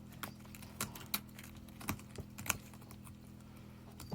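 Cat's claws clicking and scratching on a cardboard scratch box: irregular sharp ticks, a few louder than the rest, over a low steady hum.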